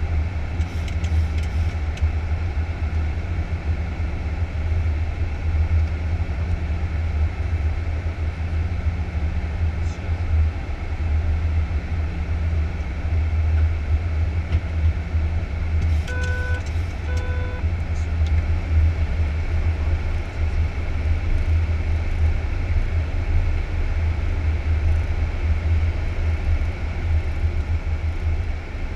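Boeing 737-800 flight deck noise in descent: a steady low rumble of airflow and engines with an even hiss over it. A little past halfway, two short electronic beeps sound about a second apart.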